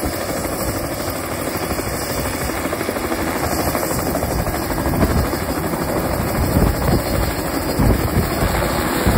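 Crop-spraying helicopter running with its main rotor turning. It grows louder about five seconds in as it powers up to lift off.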